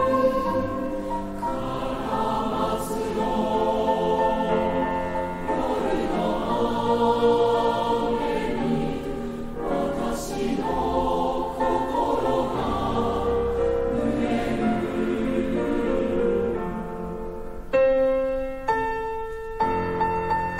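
Mixed choir of student voices singing a slow Japanese choral song in sustained chords over piano accompaniment. About three-quarters of the way through the choir stops and the piano carries on alone with a few struck chords.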